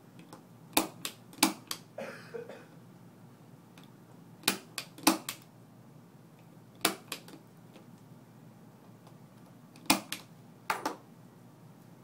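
A 110-style punch-down tool snapping as it seats twisted-pair wires into the IDC terminals of a Cat 5e keystone jack. There are about a dozen sharp clicks in four groups, with pauses of a second or more between them.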